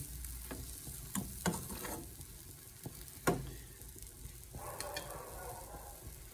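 Metal spoon scraping and tapping against a frying pan while spreading tapioca starch. Several sharp clicks sound over a faint steady hiss, the loudest about three seconds in.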